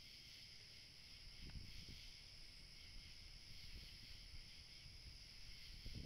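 Near silence: quiet night ambience with a steady faint high-pitched hum, and faint low rustles about a second and a half in and again near the end.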